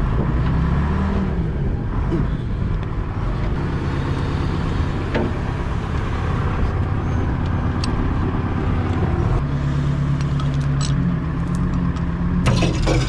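Loader engine running, its pitch rising and falling as it works a heavy cement block hung on a chain. A few sharp clicks cut through, and near the end a louder, noisier clatter comes in, the chain stretching under the load with a sound taken as sketchy.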